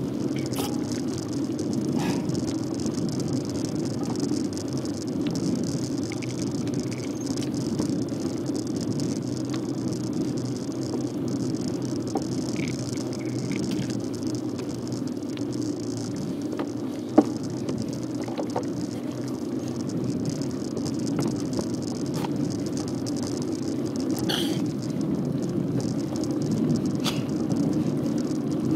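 A bicycle being ridden: a steady rumble of tyres and wind on the microphone, with scattered small rattles and clicks from the bike and one sharp knock a little past the middle.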